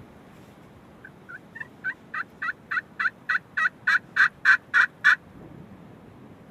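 A series of turkey yelps: about fourteen short notes at roughly three a second, growing steadily louder and stopping suddenly about five seconds in.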